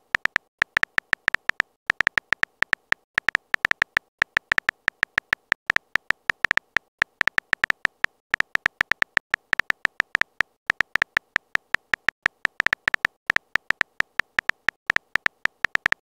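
Phone keyboard key-click sound effect: rapid, irregular clicks, several a second, in runs broken by brief pauses, as a text message is typed out.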